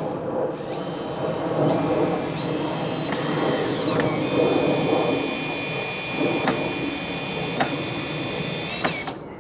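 Cordless drill driving a screw up into a wooden beam: the motor whines steadily for several seconds, its pitch shifting a couple of times, with a few sharp clicks, and stops near the end.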